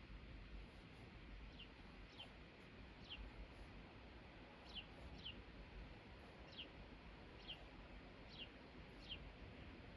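A bird calling faintly, short chirps falling in pitch repeated about once a second, often in pairs, over a low steady room hum.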